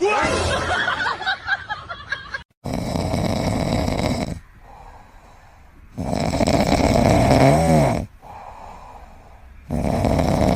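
A sleeping pet snoring loudly: three long, rasping in-breaths about three and a half seconds apart, with quieter out-breaths between them. A different, shorter sound comes before it, up to about two and a half seconds in.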